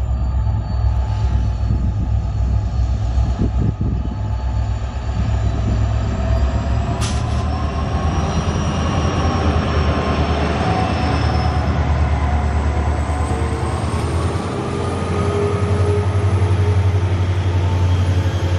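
A pair of EMD WDG-4 diesel locomotives hauling a freight train, passing close by. Their engines make a heavy, steady low drone that grows louder near the end as a locomotive comes alongside. A whine rises in pitch from the middle on, and there is a single sharp click about seven seconds in.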